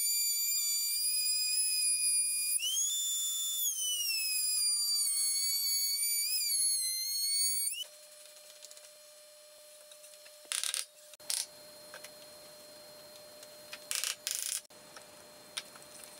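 Table-mounted router running with a high whine whose pitch dips and recovers as a board is fed past the bit. After about eight seconds it gives way to a much quieter stretch with a few brief scrapes and knocks of wooden boards being handled.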